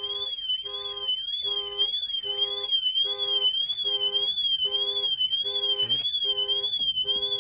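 Car alarm going off after the driver's door was opened while the system was armed: an electronic siren warbling rapidly up and down, with the car's horn sounding in short, regular blasts about once every three-quarters of a second.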